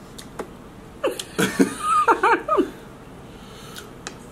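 A short burst of a person's laughter, lasting about a second and a half, with a few faint clicks before and after it.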